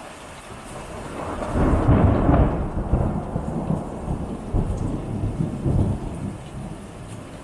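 A clap of thunder builds about a second in, is loudest about two seconds in, then rolls on in low pulses and fades, over steady rain.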